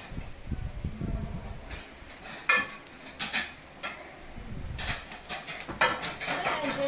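Dishes clinking: white ceramic plates taken off stacks and set down on a steel counter while snacks are plated, in irregular sharp clinks about a second apart, the sharpest about two and a half seconds in.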